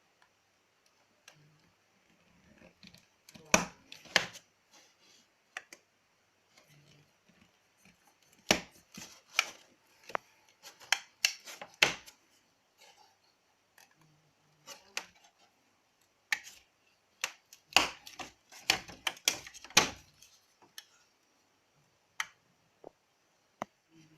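Thin plywood parts being handled, with sharp wooden clicks and knocks in several short clusters and quiet gaps between them.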